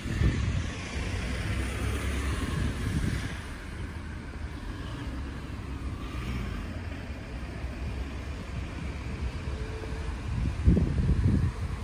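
A car driving past on a street, its tyre hiss swelling over the first few seconds and then fading. Wind rumbles on the microphone throughout and gusts near the end.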